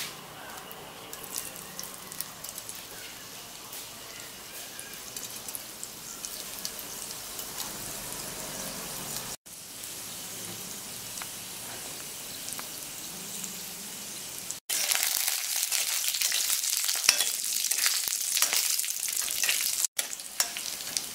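Dried red chillies and seeds frying in shallow hot oil in an iron wok: a soft, steady sizzle with fine crackling. About fifteen seconds in it turns much louder and more crackly for a few seconds.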